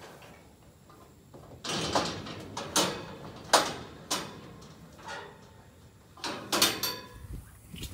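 Steel stock trailer's rear gate being swung shut and latched: a series of metal clanks and rattles, the loudest about three and a half seconds in and another cluster near the end.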